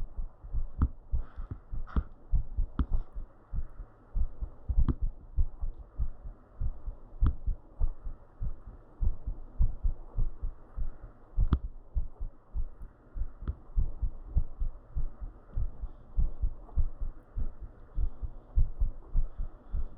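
Human heartbeat after squats, heard as a steady run of low, muffled thumps, a few a second, with a few faint clicks.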